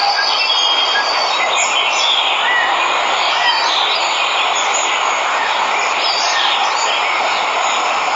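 Steady rush of a waterfall, with birds chirping and whistling in short calls over it.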